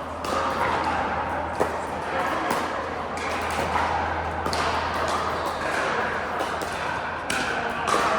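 A few sharp pops of pickleball paddles striking the ball, spaced a few seconds apart, over a busy background of voices.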